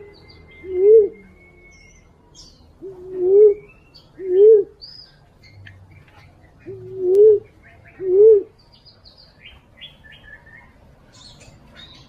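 Female fruit dove (walik) lure call: low coos in pairs, the two coos about a second apart and a new pair about every three and a half seconds. Faint, short high chirps of other small birds sound between them.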